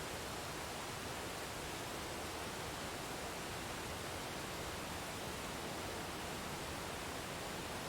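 Waterfall: a steady, even rushing of falling water that does not change.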